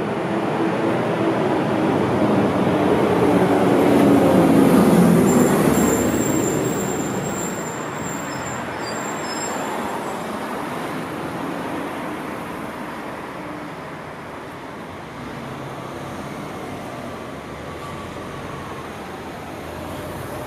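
A bus passing close by on the street, its engine and tyre noise swelling to a peak about four seconds in and then fading, with a thin high whine for a few seconds after. Lighter street traffic follows, with cars, a van and a motor scooter going by.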